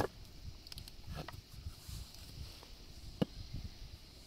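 Small hatchet chopping a piece of firewood into kindling on a wooden block: three sharp knocks, the first the loudest, the others about a second and two seconds apart.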